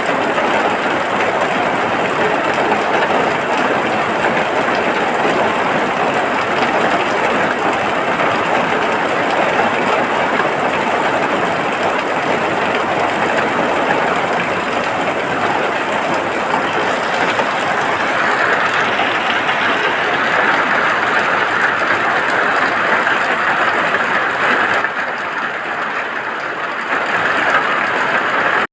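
Steady rain falling in an even, continuous hiss, easing a little for a couple of seconds near the end.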